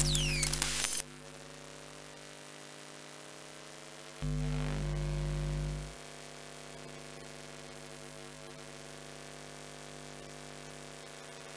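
Steady electrical mains-style hum and buzz. It swells louder for a little under two seconds around a third of the way in, then settles back. At the very start a louder sound with a falling whistle cuts off about a second in.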